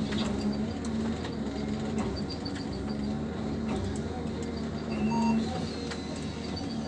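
Forestry harvester's engine and hydraulics running steadily, heard from inside the cab, with scattered clicks and a couple of short high tones about five seconds in.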